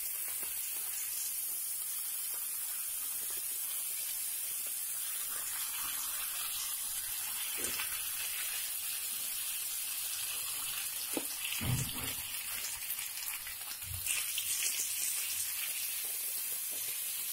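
Oil sizzling steadily under cubed potatoes frying on a cast-iron dosa griddle. A few soft knocks, then a louder stretch of rustling and thuds a little past the middle as more potato cubes go onto the griddle and are stirred by hand.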